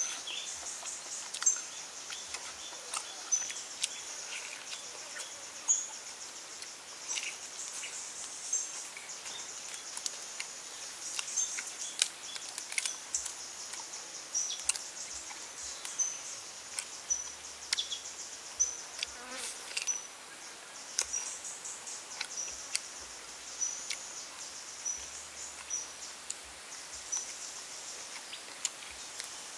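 Steady high-pitched insect chorus with short chirps repeating every second or so, over frequent sharp clicks and smacks of close-up eating: chewing and pulling apart cooked duck meat by hand.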